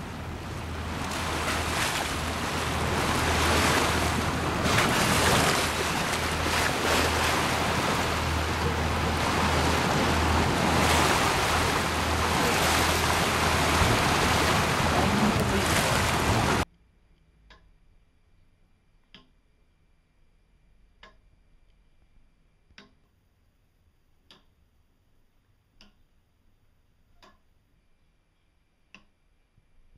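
Rushing water and wind from a boat's bow wave, with a steady low engine hum beneath. About two-thirds of the way through this cuts off suddenly to quiet, regular ticking of a wooden gear clock's escapement, about one tick a second.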